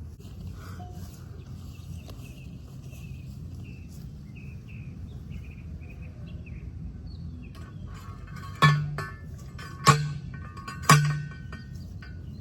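Birds chirping outdoors, then three sharp metallic clangs about a second apart, each ringing briefly: a T-post driver striking a steel T-post to drive it into the ground.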